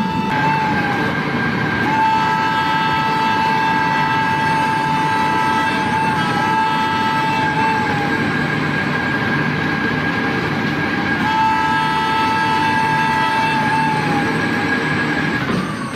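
Train horn sounding over the rumble of a running train: one high note held almost throughout, with a lower note joining in three long blasts that each drop in pitch as they end. The horn cuts out just before the end.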